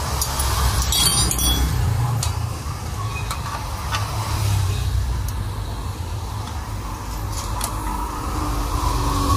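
An engine running with a steady low rumble, with a few light metallic clinks about a second in.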